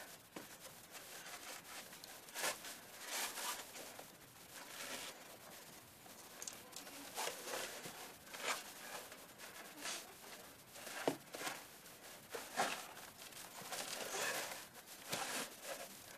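Irregular rustling and scraping in uneven bursts: clothing and hands rubbing against stone and snow during a climb up a rough masonry wall.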